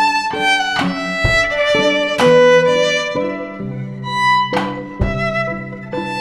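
Violin bowed in a melodic line of held notes, with a drum kit struck underneath in several sharp, irregularly spaced hits.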